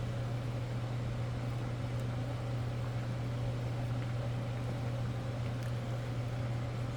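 Steady low electrical hum of a running kitchen appliance, unchanging throughout.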